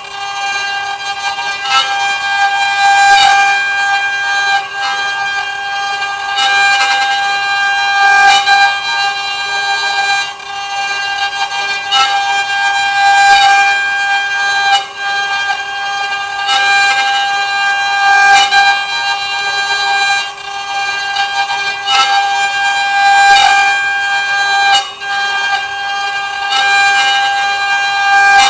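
CNC wood router's spindle running and carving wood, a steady high whine that swells with a faint click about every one and a half to two seconds.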